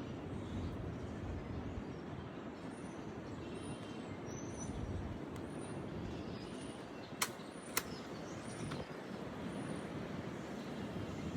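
Steady outdoor background noise, with two sharp clicks about half a second apart some seven seconds in.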